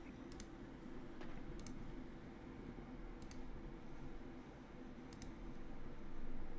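Small, sharp clicks in quick pairs, four times, about every one and a half to two seconds, over a low steady hum.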